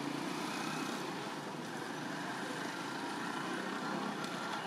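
Steady outdoor background noise: an even hum and hiss with no distinct events.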